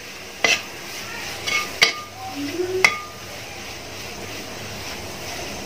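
Tomatoes and onion masala sizzling and frying in a metal pan while a metal spoon stirs them. Three sharp clinks of the spoon against the pan ring briefly over the steady sizzle.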